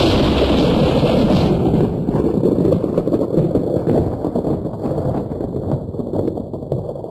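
A dense, crackling, rumbling noise that slowly fades away, with a high hiss dying out in the first two seconds.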